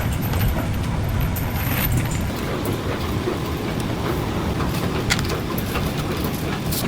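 Steady low rumble of running factory machinery, with a few faint clicks scattered through it.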